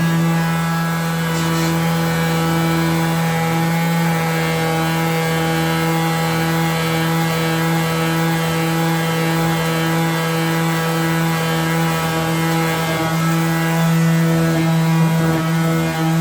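Electric power sander running steadily at one unchanging pitch, its motor hum loud and even.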